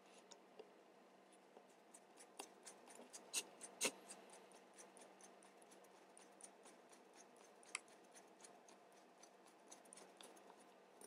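Faint, scattered small clicks and ticks of a screwdriver turning the chassis screw into an airsoft Glock 17 frame, with two sharper clicks about three and a half seconds in.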